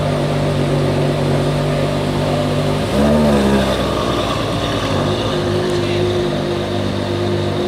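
Ferrari 599 SA Aperta's V12 idling with a steady note, a quick rev blip about three seconds in, then pulling away at low speed.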